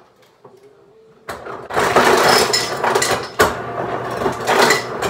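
Refrigerator door dispenser running into a glass, starting about a second in, with a brief break about halfway and stopping at the end.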